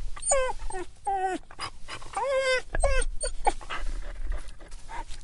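Dog whimpering and crying in a run of short, high, wavering whines, several in quick succession, growing sparser and fainter in the last couple of seconds.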